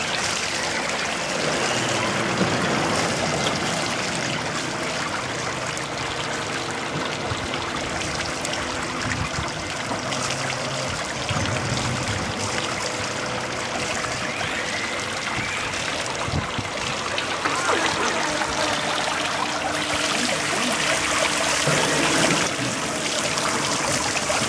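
Water spilling steadily over the edge of an ornamental pool in a thin cascade into a stone gutter, a continuous trickling rush.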